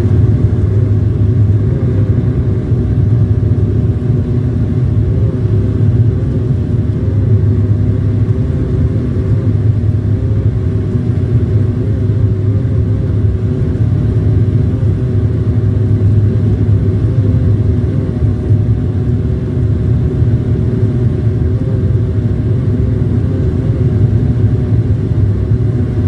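Steady, loud drone of an airliner heard from inside the cabin, a low hum over an even rumble that holds unchanged throughout.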